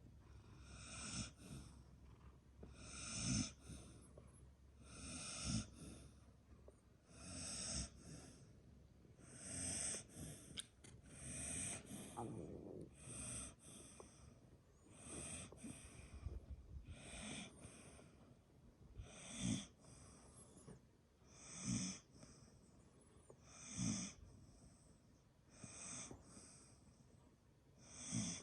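Dog snoring, fairly quiet, with one breathy snore about every two seconds.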